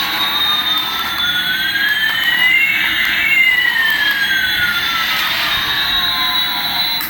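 Electronic jet-engine sound effect from a toy: a steady hiss with two tones sliding toward each other, crossing about three seconds in, then sliding apart again. It cuts off abruptly near the end.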